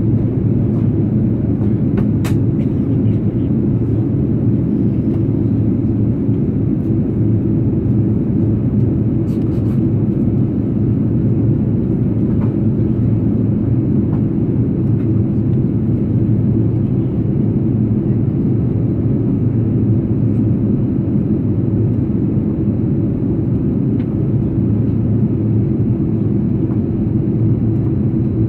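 Steady drone heard inside the cabin of an Airbus A330-200 in descent: airflow over the fuselage and its GE CF6-80E1A3 turbofans. Two faint clicks come about two and nine seconds in.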